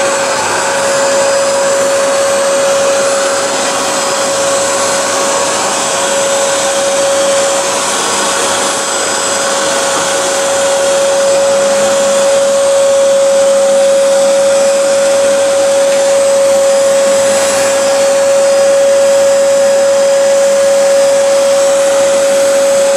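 Vacuum cleaner running steadily, a continuous rushing noise with a constant hum-like tone through it, getting a little louder about halfway through.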